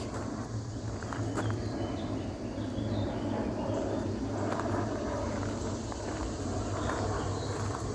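Footsteps walking along a park trail over a steady low rumble, with insects calling in the background.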